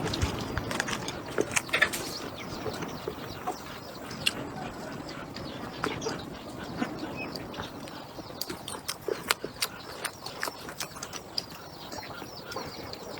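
Close-miked eating: chewing and mouth smacks with many irregular sharp clicks.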